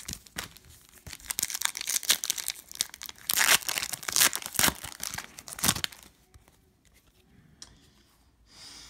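Foil wrapper of a Panini Prizm basketball card pack being torn open and crinkled by hand: a run of sharp tearing and crackling noises that stops about six seconds in.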